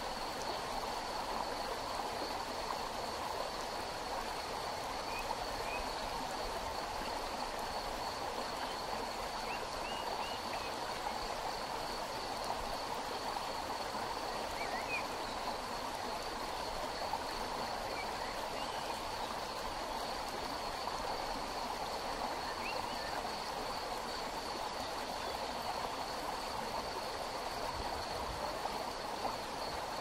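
Forest river flowing steadily, a continuous even rush of water over stones. A constant thin high tone runs beneath it, and a few faint short chirps come and go.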